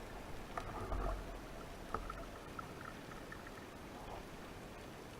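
Water noise on an underwater spearfishing camera: a few splashes and clicks in the first two seconds, then a steady faint hiss.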